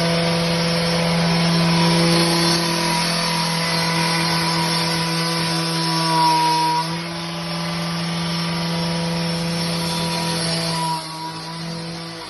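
A machine motor running steadily at an even pitch over a hiss, easing back a little about seven seconds in and again near the end.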